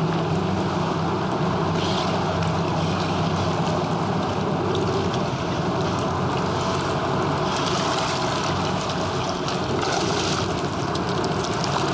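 Steady rushing of water with wind noise, even and unbroken throughout.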